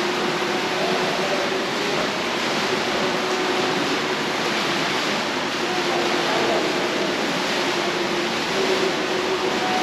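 Steady, loud rushing noise with no breaks, with faint wavering tones beneath it.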